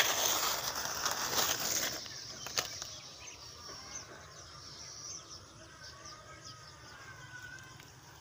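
Plastic bag of coarse salt rustling as it is handled and salt is taken out by hand, loudest for the first two seconds, then fainter.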